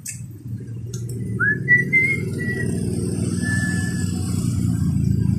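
A few short whistled notes, the first rising, over a steady low rumble that builds in the first second and stays loud.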